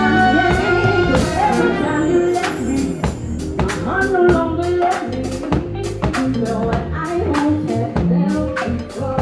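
Live band with horns playing an instrumental passage of a song between sung lines, the drum kit keeping a steady beat under the pitched instruments.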